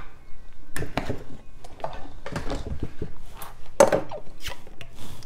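Kitchen items being handled on a countertop: a string of irregular knocks and short clatters, the sharpest about four seconds in, as jars are reached for.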